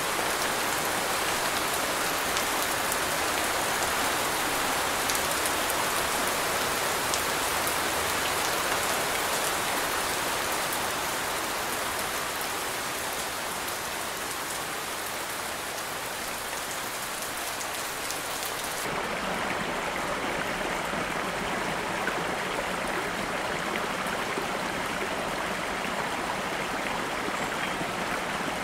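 Steady rain falling, with a fine patter of drops. About two-thirds of the way through it changes abruptly to a duller, lower rushing of water with much less hiss.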